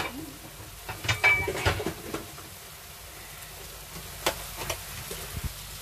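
Eggplant adobo sizzling steadily in olive oil in a pan, with several sharp clatters of a utensil or lid against the pan in the first two seconds and another about four seconds in.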